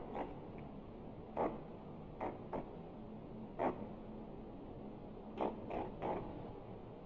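A string of short, fairly quiet fart sounds: about eight brief puffs at irregular gaps over a faint steady hiss.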